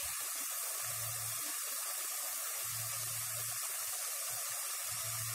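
Chopped onions and tomatoes frying in oil in a pan, a steady sizzling hiss.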